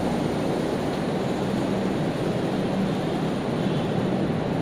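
Steady rushing background noise with a faint low hum underneath, unchanging throughout, like a fan or motor running near the microphone.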